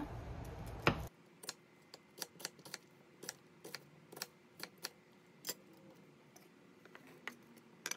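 Chef's knife dicing an onion on a wooden cutting board: a run of sharp, separate taps, about two to three a second, thinning out after about five seconds.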